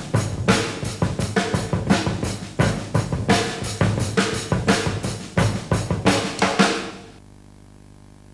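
Drum kit playing a fast, busy rhythm of snare and bass-drum strikes as title music. It fades out about seven seconds in, leaving a faint steady hum and hiss.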